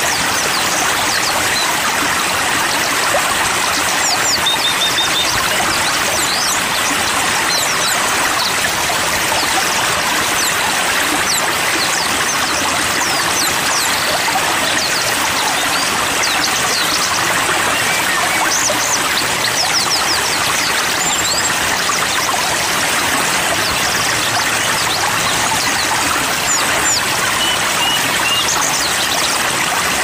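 Steady rush of a flowing stream, with many small birds chirping and twittering over it: short high calls and brief trills scattered throughout.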